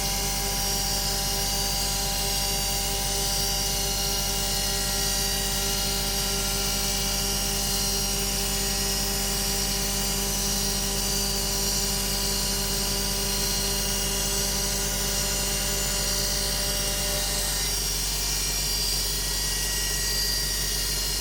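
DIY CNC milling machine running with a steady whine of several held tones over a constant whir; the tone mix shifts slightly about three quarters of the way through.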